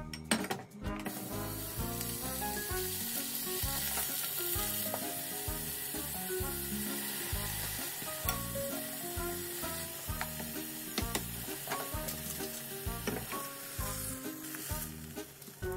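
Wiener sausage pieces and spinach sizzling as they stir-fry in sesame oil in a frying pan on a gas flame. The sizzle starts about a second in and stops near the end.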